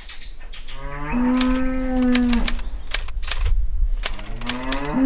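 A cow mooing twice: each call rises in pitch, then holds steady for over a second; the second starts near the end. Sharp clicks sound over the calls.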